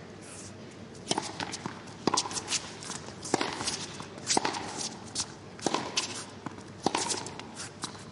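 Tennis rally: the ball is struck back and forth by rackets, with a sharp knock about once a second starting about a second in, over players' footsteps and shoe scuffs on the court.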